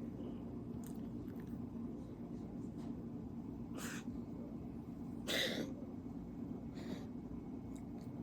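Siberian cat sneezing: three short, sharp nasal bursts about a second and a half apart, the middle one loudest, with a fainter one near the start.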